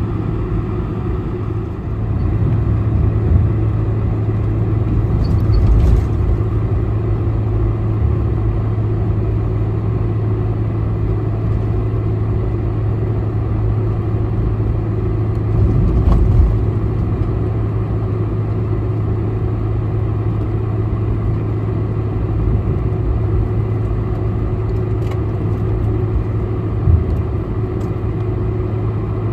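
Cabin noise of a Boeing 747-400 taxiing: a steady hum from its four turbofan engines at low taxi thrust over the rumble of the gear rolling on the taxiway. It is jolted by heavier bumps about six and sixteen seconds in.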